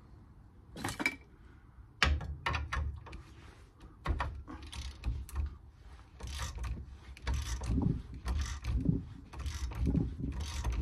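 Metal hand tools clicking and knocking, with short ratcheting rasps repeated several times through the second half, from work on the CV boot fitting tool on a van's drive shaft.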